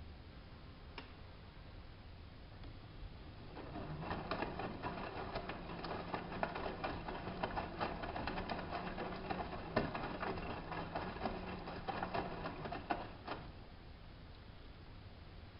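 Hanseatic HWM814A3D washing machine's drum turning during a wash: a steady motor hum under a rapid patter of clicks starts about four seconds in, runs for about nine seconds and stops, leaving a faint hum.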